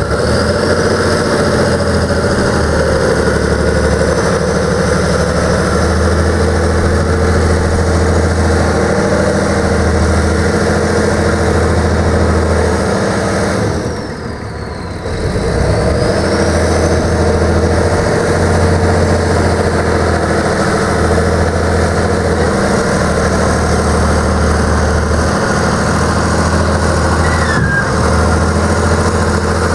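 Deutz F6L912W air-cooled turbo diesel six-cylinder running steadily at idle, with a faint high whine above the engine note. The sound drops away briefly about halfway through, then the engine carries on as before.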